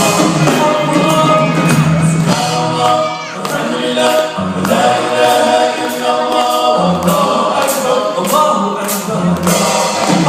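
Live nasheed: many voices singing a devotional Islamic chant to a steady percussive beat.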